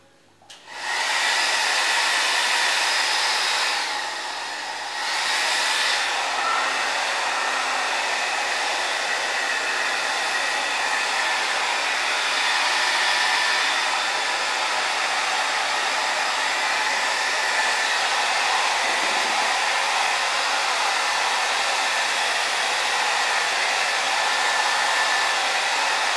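Handheld electric hair dryer switched on about half a second in and blowing steadily, with a brief dip in level about four seconds in.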